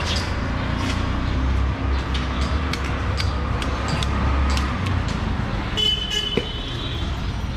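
Street traffic noise: engines rumbling steadily, then a vehicle horn sounds for about a second near the end, over scattered light clicks.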